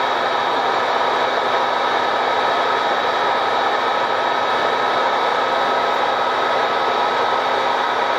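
Steady, unchanging whir of a running machine, like a blower or fan, with a thin high hum running through it.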